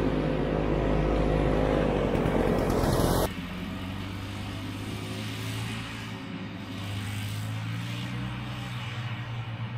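1967 Ski-Doo Olympic snowmobile's 250cc single-cylinder two-stroke engine revving up and down as the sled pulls away. After an abrupt cut about three seconds in, it is fainter and runs steadily.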